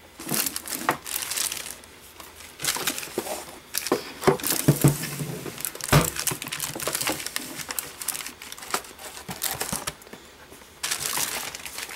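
Packaging crinkling and rustling as unboxed items are handled, in irregular bursts with small clicks and knocks. It pauses briefly about two seconds in and again near ten seconds.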